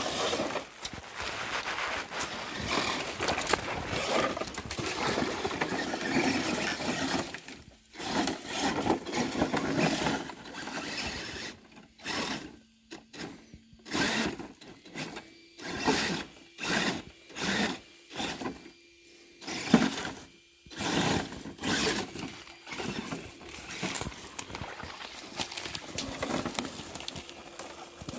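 Dry leaf litter crunching and rustling under an RGT Rock Hammer RC rock crawler and under footsteps. A long stretch of continuous crackling is followed by sharp crunches about once a second. A faint steady whine, typical of the crawler's electric motor, runs through the later part.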